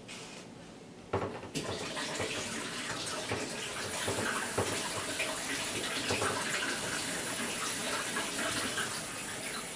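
Water running from a tap in a steady stream, turned on about a second in and shut off near the end.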